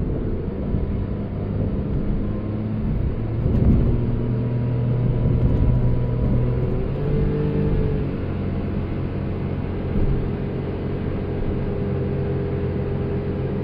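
Inside the cab of a Daihatsu Hijet Cargo kei van, its naturally aspirated three-cylinder engine with a CVT drones steadily while cruising, over low road rumble. The drone swells briefly about four seconds in, and its pitch lifts a little a few seconds later.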